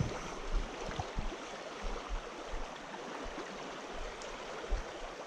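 Shallow creek water running over a cobble streambed: a steady babble.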